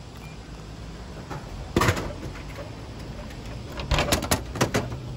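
A can drops through a Coca-Cola vending machine and lands in the delivery bin with one loud thud about two seconds in. Near the end comes a rapid run of clacks and knocks as the plastic flap of the bin is pushed open and the can is pulled out.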